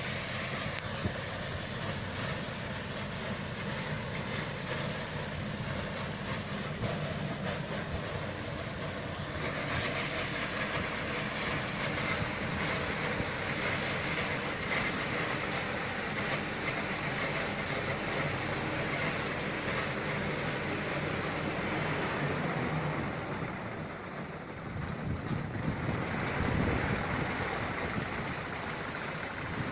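Tractor engine running steadily under load, driving a PTO- and hydraulic-driven sugarcane cutting machine as it cuts and gathers standing cane. The high-pitched noise of the working machine grows louder about a third of the way in.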